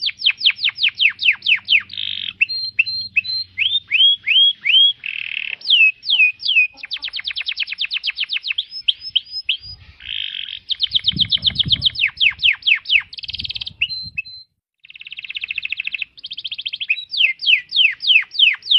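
Canary singing a fast, varied song: rapid trills of repeated downward-sweeping notes, broken by short buzzy rattles, with one brief pause about two-thirds of the way through.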